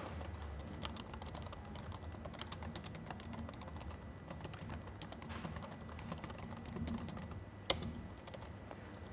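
Laptop keyboard typing: a steady run of quick keystrokes, with one sharper, louder key strike about three-quarters of the way through.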